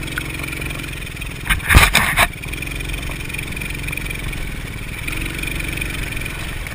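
TaoTao Coolster 125 ATV's single-cylinder engine running steadily while riding, heard from on the machine. A brief burst of loud knocks comes about two seconds in.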